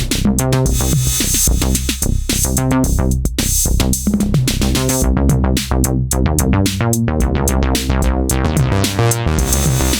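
Novation Peak synthesizer playing a resonant bass line over a drum-machine beat at 110 bpm.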